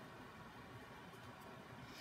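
Near silence: room tone, with a few faint ticks from fingers pressing a small piece of thin leather onto a miniature boot.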